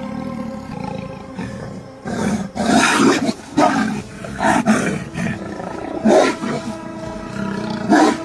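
Leopard and honey badger snarling and growling as they fight, in a run of loud outbursts from about two seconds in, spaced about a second or two apart.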